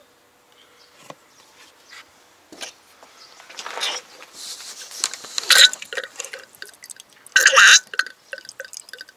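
Old power steering fluid mixed with air sputtering and gurgling out of the open return hose into a cup, in irregular spurts that are loudest a few seconds in and about three quarters of the way through, as the steering is worked to pump the old fluid out and bleed the system.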